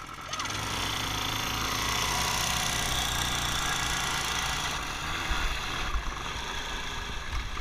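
An off-road dirt bike engine starting to pull away, then running steadily under throttle. From about five seconds in, low thumps and bumps mix in.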